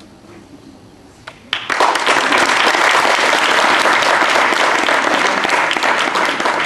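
Audience applauding: a couple of lone claps about a second and a half in, then a crowd clapping loudly and steadily.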